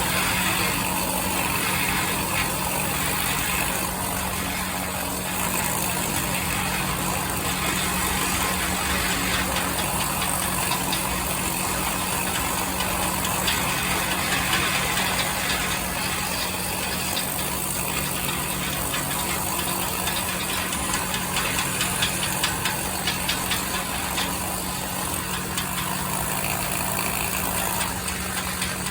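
An engine running steadily at a constant speed, with a low hum and light rattling.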